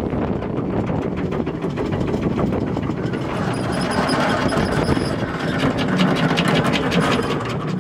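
Electric anchor windlass hauling in chain to raise the anchor: the motor runs steadily while the chain links clank rapidly over the gypsy.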